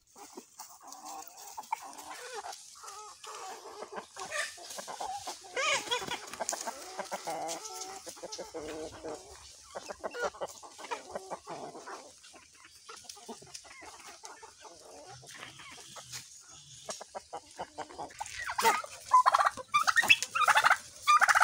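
Kabir and Rhode Island Red chickens clucking softly as they feed, a few short calls at a time, with louder, quickly repeated calls in the last three seconds.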